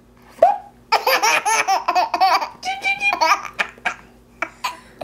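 Baby laughing hard: a brief vocal sound, then a long run of quick, repeated belly laughs that break up into a few short bursts near the end.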